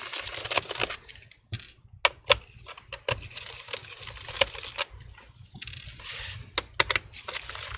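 Phillips screwdriver backing small screws out of a plastic laptop bottom cover: scattered sharp clicks and light metallic clinks, with short scraping sounds about a second and a half in and about six seconds in.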